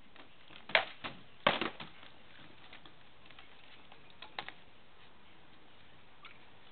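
Sharp knocks of sword blows striking shields and armour in armoured sparring: a pair about a second in, a louder quick flurry soon after, a few more past the middle and a faint one near the end.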